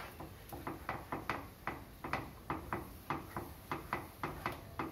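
Spoon stirring a thin, watery paste in a nonstick frying pan, scraping and tapping against the pan in quick regular strokes, about four or five a second.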